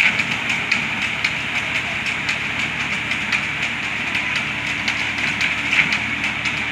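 Tractor engine running steadily under load as its front-mounted reaper cuts wheat, over a constant higher hiss with frequent short ticks.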